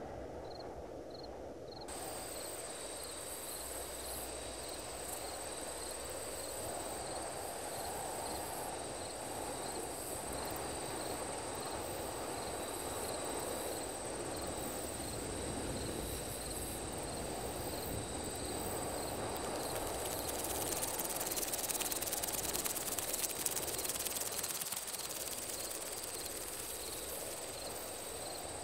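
Designed sci-fi night ambience: crickets chirping in an even rhythm over a wash of rural night noise, joined about two seconds in by a steady high electronic tone, with a crackling hiss swelling up near the end.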